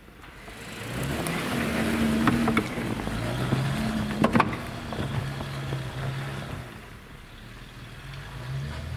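Off-road Jeep engine revving up and down while driving over rough ground, growing louder over the first second, with a few sharp knocks about two and four seconds in.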